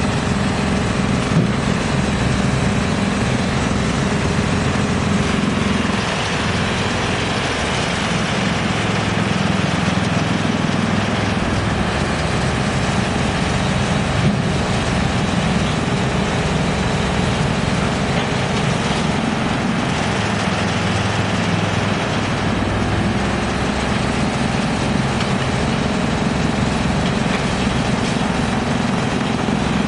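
Drum wood chipper running, a loud, steady machine noise with a low hum that shifts slightly a few times.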